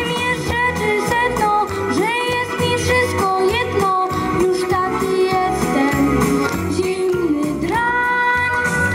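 A boy singing a pop song into a microphone over instrumental backing with a steady beat. He ends the phrase on a long held note near the end.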